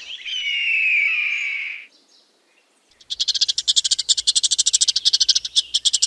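A hawk's single long scream, falling in pitch over about two seconds. After a pause of about a second, a chipmunk gives a fast, high run of chipping calls that keeps going.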